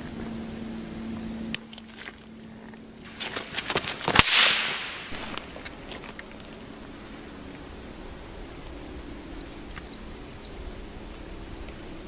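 An Italian firecracker goes off with one loud, sharp bang about four seconds in, after a few sharp crackles, and echoes through the woods. Birds chirp briefly later on.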